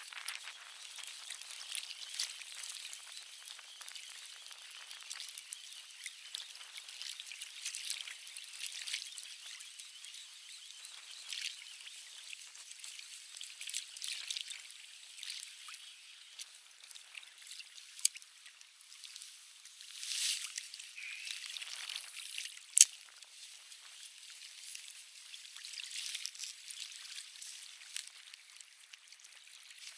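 Riverside water trickling and lapping, full of small crackles, with a couple of sharp clicks partway through.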